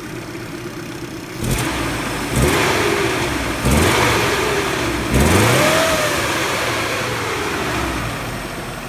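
1992 Subaru Loyale's 1.8-litre flat-four engine being revved from idle in four throttle blips. The last blip climbs highest and falls back slowly toward idle. The owner says the engine has a few exhaust leaks.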